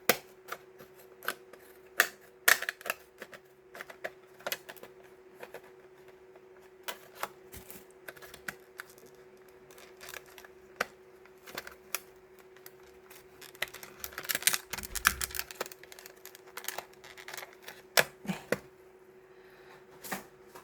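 Scissors cutting open a mechanical pencil's plastic packaging: scattered sharp snips, clicks and taps at irregular intervals. About three-quarters of the way through there is a longer stretch of scraping and rustling.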